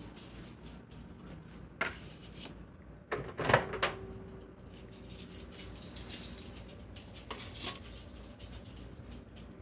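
Knocks and clatter of a plate of candy being handled and a microwave door being opened and shut, the loudest cluster about three and a half seconds in, with a brief ringing after it.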